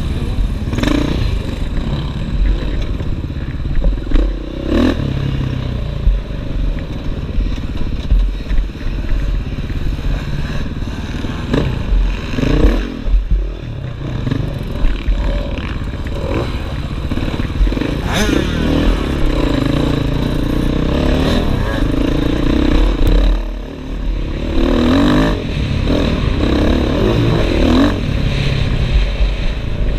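Off-road motorcycle engine, heard close up from a camera mounted on the bike, revving up and falling back again and again as it is ridden over a rough dirt track. Short knocks come from the bike over the bumps.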